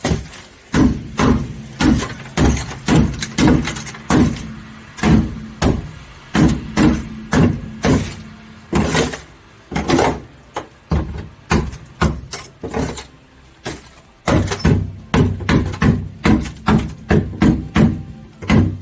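Repeated blows on the sheet-steel floor pan of a 1987 Suzuki Samurai, each ringing briefly through the metal, about two a second. The floor's old coating has been chilled with dry ice, and the blows are knocking it loose. The blows pause briefly about three-quarters of the way through, then come faster.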